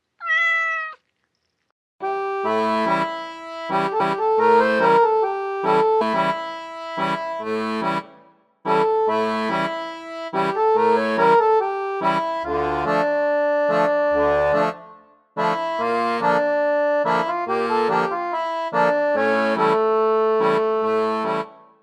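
A cat meows once, a short call that rises and then falls in pitch, then background music plays in repeating phrases from about two seconds in.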